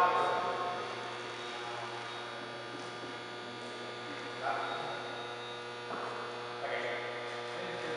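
A steady electrical mains hum, with faint distant voices now and then.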